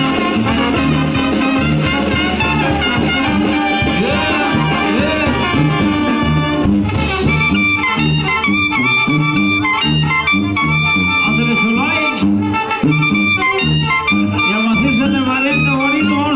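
Live Mexican brass banda playing an instrumental passage: a sousaphone bass line on a steady beat of about two notes a second under trumpets, trombones and clarinets, with drums.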